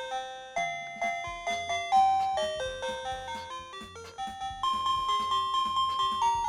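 Plug-in receiver of an OMERIL wireless doorbell playing one of its electronic chime tunes: a quick melody of bell-like notes, each struck and fading, with one higher note held for a second or two near the end.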